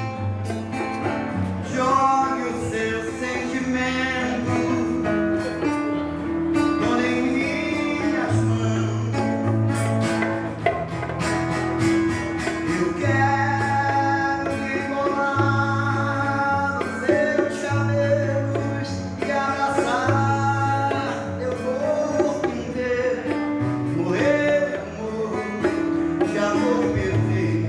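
Acoustic guitar playing a song, with melodic lines over a repeating low bass.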